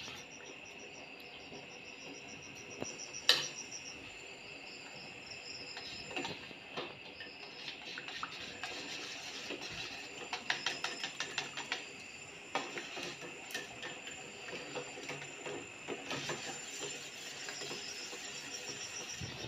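A utensil stirring and scraping a liquid soap mixture in a steel pot, over a steady high hiss. There is one sharp knock against the pot a few seconds in, and a quick run of clicks and scrapes about halfway through.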